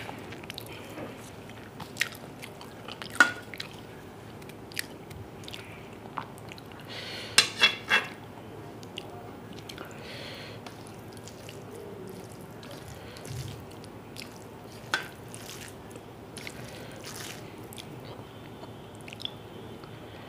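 Close-miked eating sounds: wet chewing and mouth and lip smacks as rice and chicken curry are eaten by hand, with fingers squelching through the rice. Scattered sharp clicks, the loudest a quick cluster of several about seven to eight seconds in.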